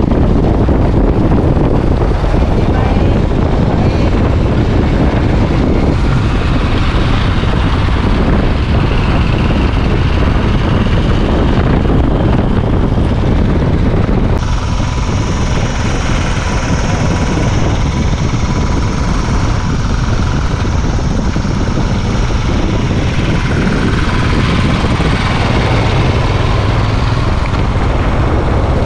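Loud, steady wind buffeting and road noise from a vehicle driving at speed, with a deep rumble; about halfway through the noise changes, with a steady high hiss added.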